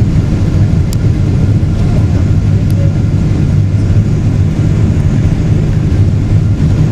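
Steady cabin noise of a Boeing 777-200 airliner in its descent, heard from inside the cabin: a loud, even low rumble of engines and airflow. Two light clicks come about one and three seconds in.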